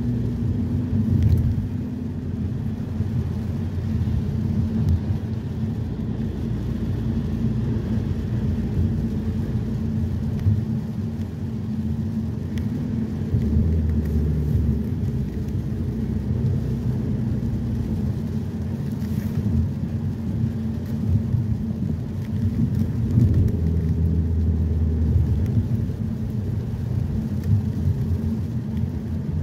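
Steady low engine and road rumble heard inside a moving car's cabin, swelling a little at times.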